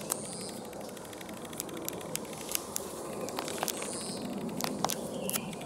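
Leaves and twigs rustling and crackling as someone pushes through dense scrub, with scattered sharp snaps, several close together in the second half.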